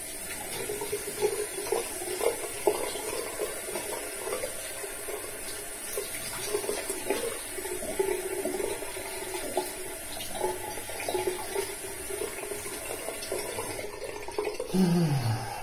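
Bathroom tap running steadily into a sink, the water splashing and gurgling as it hits the basin. A brief low falling tone comes near the end.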